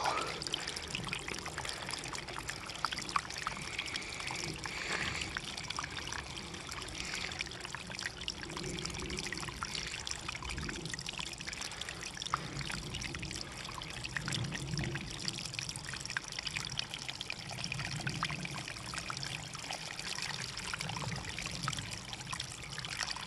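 A thin trickle of spring water running off a rock into the neck of a plastic Smart Water bottle, a steady pouring and splashing as the bottle fills.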